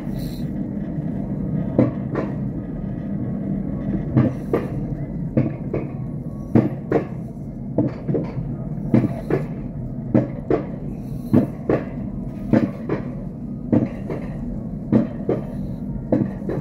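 Alpine coaster sled being hauled up the lift section of its steel rail track: a steady rumble of the wheels on the rails, broken by sharp clacks, often in quick pairs, about once a second.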